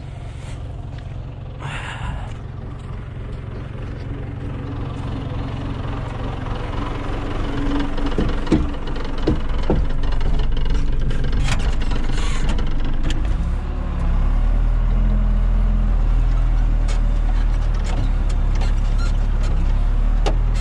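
John Deere 3200 telehandler's diesel engine running, heard from inside the cab, growing louder over the first ten seconds, with a few knocks and clicks about eight to ten seconds in. About fourteen seconds in the engine revs up and holds a higher, steady note.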